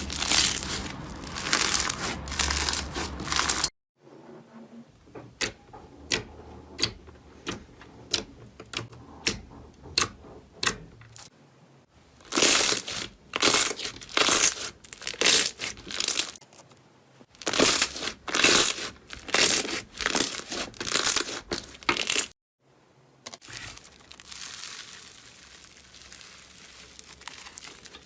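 Slime being worked by hand in a run of short clips: dense crackling first, then sharp pops about two a second, then loud squishing and crackling bursts, and a softer hiss near the end.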